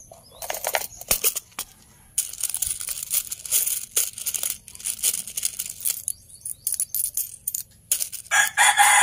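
Metal coins clicking and clattering as a hand rummages through a small box full of coins. Near the end a rooster crows.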